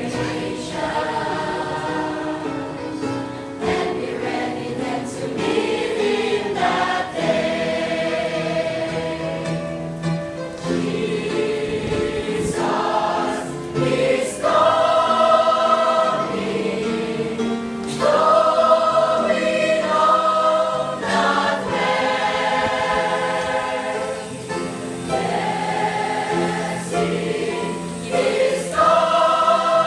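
Church choir singing a hymn together, holding long notes that change every second or two.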